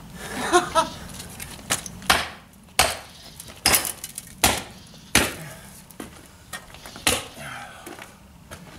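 Sharp hammer blows on wooden formwork boards, about seven strikes at uneven intervals, as the shuttering is knocked loose from the edge of a freshly poured concrete foundation.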